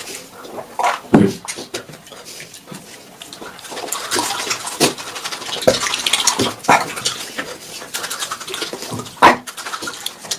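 Close-miked eating: irregular wet chewing, lip-smacking and sucking sounds with scattered clicks, and a couple of louder mouth or throat noises about a second in and near the end.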